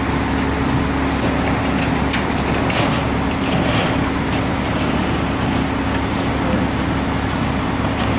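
A vehicle engine runs steadily with a constant hum, under short scrapes and clicks as the transformer's wooden pallet is slid across the truck's steel deck.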